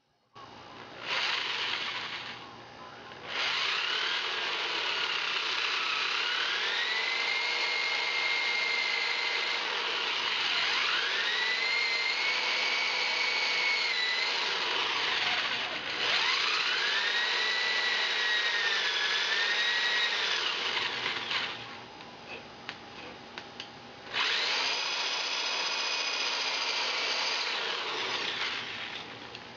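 Electric hand drill boring an inch-deep hole into a wooden crossbow stock. The motor's whine rises and sags as the bit loads up and is eased off, with a few brief let-ups and a quieter stretch about three quarters through. It stops just before the end.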